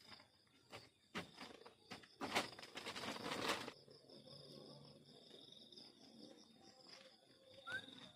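Crickets chirping steadily, with a few rustling noises in the first few seconds. Near the end a bird starts a call of short notes stepping down in pitch.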